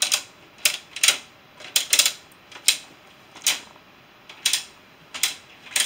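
Guess Who character tiles being flipped down one after another on the plastic game board: a run of sharp clicks, about two a second, with a short pause a little past the middle.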